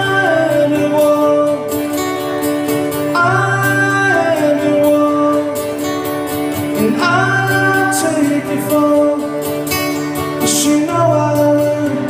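Acoustic guitar and singing in a live song, the voice holding long notes that slide down in pitch about every four seconds over steady strummed chords.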